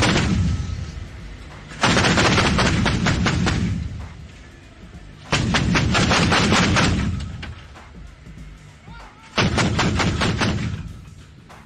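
Several Bofors 40 mm anti-aircraft guns firing in rapid bursts of quick shots with a heavy rumble after each. One burst trails off just after the start, and three more come about two, five and nine seconds in.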